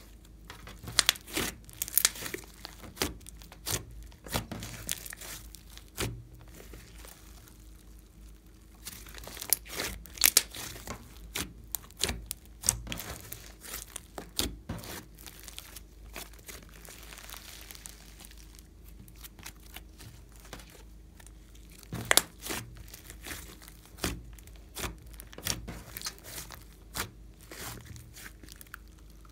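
Glossy slime squeezed, stretched and folded by hand, giving irregular sticky clicks and pops as it pulls apart and squishes, with quieter stretches between clusters.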